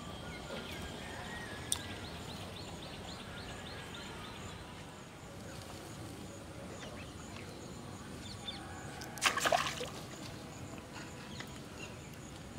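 A short burst of water splashing about nine seconds in, as a bamboo fishing rod is jerked up and the line and float are pulled out of the pond.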